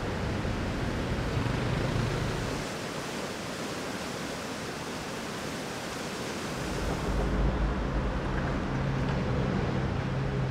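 Steady riverside ambience: a broad rushing hiss of flowing water and wind, with a low rumble and hum underneath that drops out for a few seconds in the middle and returns louder about seven seconds in.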